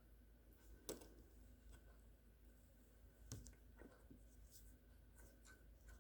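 Near silence with faint handling noises: a few soft clicks and light scratchy rustles, the sharpest about a second in and again a little after three seconds, over a low steady hum.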